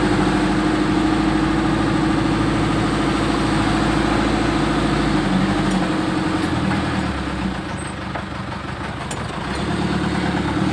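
Six-wheeler mini dump truck's engine running steadily while driving in second gear. About six seconds in, its note drops and it eases off, then picks up again near the end.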